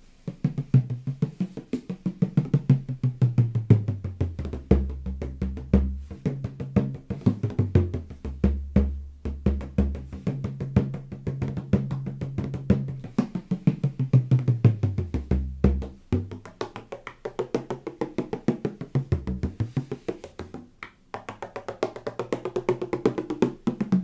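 15.5-inch Hedwitschak bodhrán with a Dragonskin head, played with a tipper in a fast, steady run of many strokes a second. Its deep note drops lower for stretches and turns higher and brighter in the last third.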